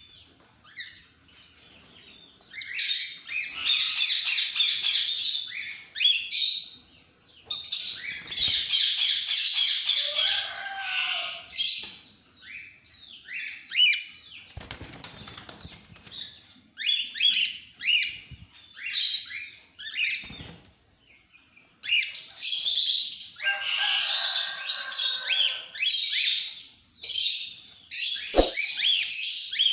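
A flock of cockatiels chirping and calling in repeated bursts, with a flurry of wing flapping about halfway through.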